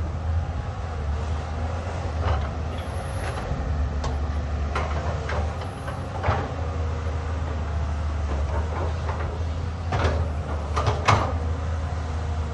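Caterpillar 320D hydraulic excavator's six-cylinder diesel engine running steadily while digging, with scattered metallic clanks and knocks, several close together about ten to eleven seconds in.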